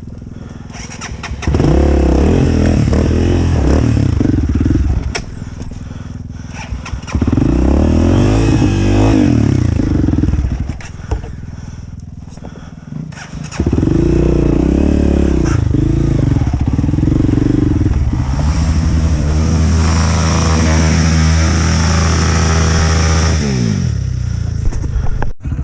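Off-road dirt bike engine revved hard in three bursts, dropping back towards idle between them. The third burst is the longest and is held at high revs for several seconds before falling away near the end.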